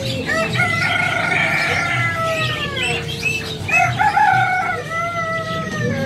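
A rooster crowing twice, each crow a long drawn-out call that falls in pitch at the end, with small caged birds chirping throughout.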